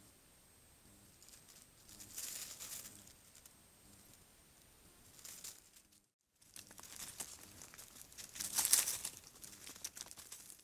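Dry leaf litter and vegetation rustling and crunching as a small animal moves and forages right by a trail camera, in irregular bursts that are loudest about nine seconds in. There is a brief dropout about six seconds in, and a faint steady high whine sits under the first part.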